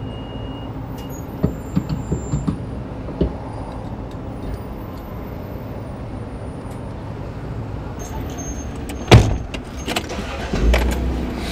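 Car door slammed shut once, a sharp loud thud about nine seconds in, followed by a few smaller knocks. Under it runs a steady low vehicle rumble, with light clicks and knocks in the first few seconds.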